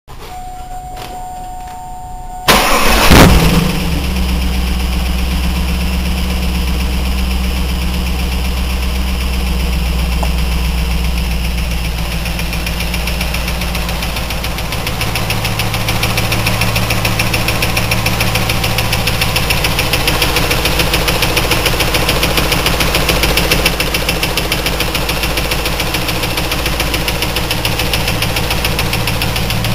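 A 2000 Pontiac Trans Am's LS1 5.7-litre V8 starts about two and a half seconds in and settles into a steady idle with a fast, even ticking over it. The owner has found the oil to be fine and doesn't know what is causing the tick.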